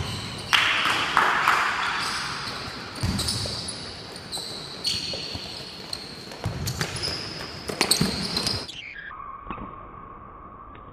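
Futsal ball being kicked and bouncing, with players' shoes squeaking on the hard court, echoing in a large sports hall. Near the end the game sound drops away into a duller, steady tone.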